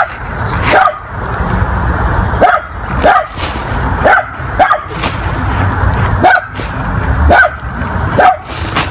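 A dog barking repeatedly, about ten sharp barks at uneven intervals: an alarm bark at someone walking by.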